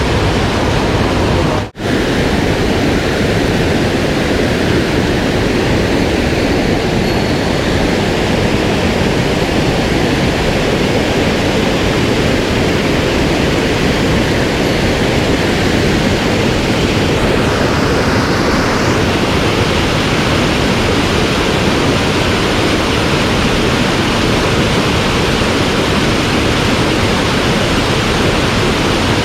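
Rushing water of a mountain stream, a loud steady hiss, with a momentary dropout about two seconds in.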